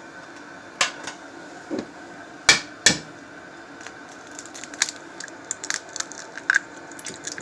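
An egg cracked against the rim of a bowl: two sharp taps about half a second apart near the middle, with lighter clicks and handling noises around them.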